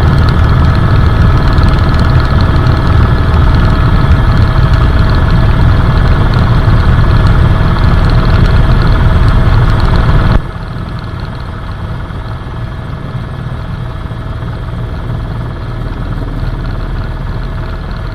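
Helicopter cabin noise: a steady drone of rotor and turbine with a low rumble and several whining tones. About ten seconds in it cuts abruptly to a quieter, duller steady drone.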